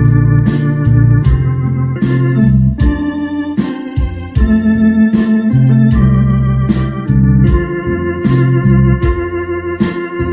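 Electronic organ playing a slow ballad melody over sustained chords and bass, with a steady programmed drum beat.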